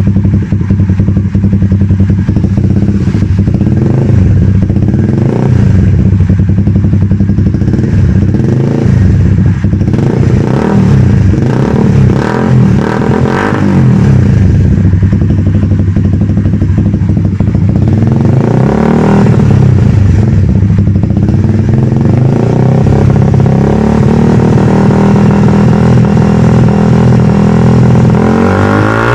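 Motorcycle engine running through an aftermarket exhaust, idling steadily with a few throttle blips that raise and drop the revs, about halfway through and near the end.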